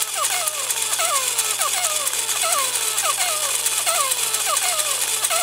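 Tekno robot dog walking: its gear motor and plastic legs make a steady fast rattle, with a short falling squeak repeating about three times a second.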